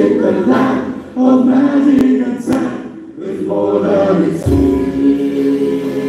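A group of voices singing a song together in choir style, amplified through stage microphones, with a guitar and keyboard band backing them. The voices pause briefly between phrases.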